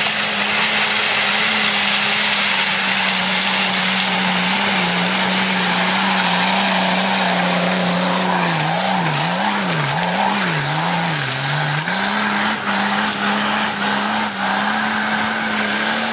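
A 4x4 engine working hard under load as the vehicle climbs over large loose rocks, its pitch wavering up and down several times about two-thirds through as the throttle is worked, with a few brief drops near the end.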